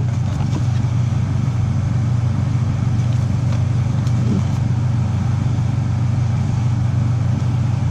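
Steady low mechanical hum with no change in pitch, and a few faint clicks about three to four and a half seconds in.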